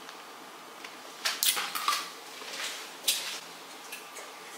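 A handful of short, light clinks and knocks of kitchen utensils and dishes, beginning about a second in and spread over a couple of seconds.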